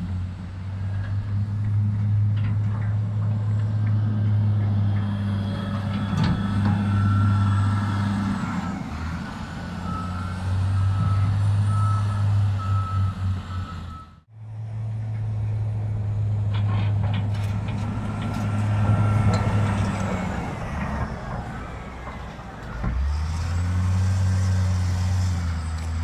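Caterpillar 950H wheel loader's diesel engine running as it pushes snow, swelling and easing with the work, with a backup alarm beeping at times. The sound drops out for an instant about halfway through.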